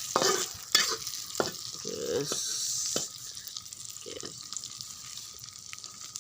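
Sliced chilies, shallots and spices stir-frying in hot oil in a pan: a steady sizzle, with a spatula knocking and scraping against the pan several times. The sizzle quietens after about three seconds.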